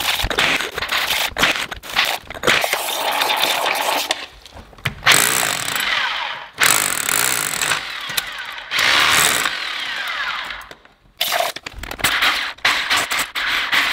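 DeWalt SDS-plus rotary hammer in hammer-drill mode driving a long masonry bit into the concrete inside a partly cored hole, breaking up the core. It runs in spurts of one to two seconds with brief stops.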